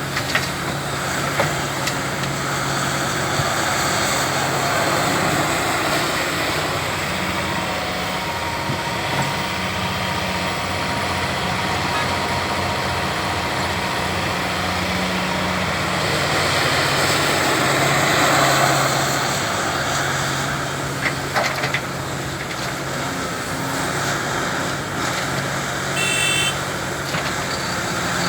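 Heavy diesel engine of a Caterpillar 352F excavator running steadily under load while it works, the engine note swelling a little about two-thirds of the way through. Near the end a short high-pitched beep sounds.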